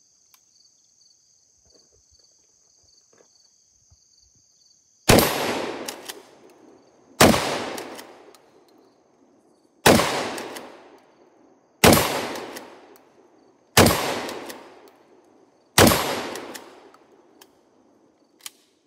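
Six shots from a Winchester SXP Defender 12-gauge pump-action shotgun, about two seconds apart and starting about five seconds in, each followed by an echo that dies away over a second or so.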